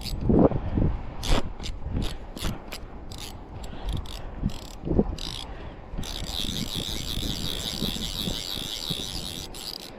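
Fly reel's click drag giving line to a hooked carp: short clicking spurts at first, mixed with a few low thumps, then from about six seconds in a continuous buzz for about three and a half seconds as the fish makes a run.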